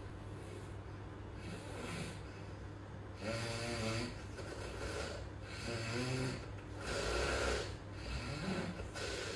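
A sleeping man snoring: four loud, rasping snores about a second and a half apart, beginning about three seconds in, over a steady low hum.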